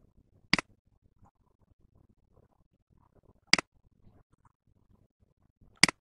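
Three sharp computer mouse clicks, a few seconds apart, each a quick press and release of the button.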